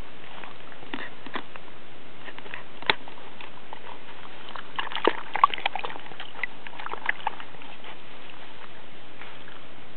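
Border collie puppy pawing in a water dish: scattered splashes and sharp knocks, a single loud one about three seconds in and a busy flurry around five to six seconds, over a steady hiss.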